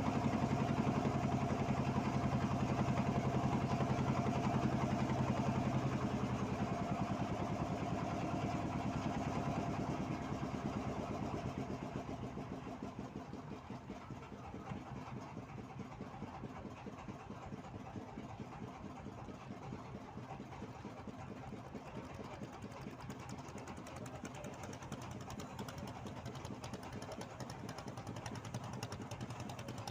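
A boat's engine running loudly, then fading away over about ten seconds as the boat draws off, leaving a quieter steady engine drone.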